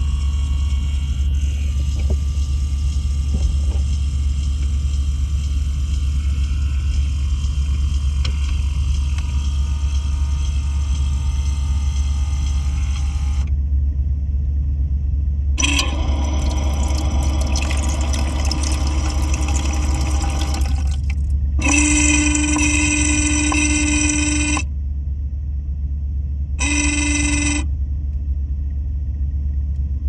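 Panasonic refrigerator's automatic ice maker filling its tray with water, with a steady low hum throughout. In the second half a higher whining tone comes and goes in three spells.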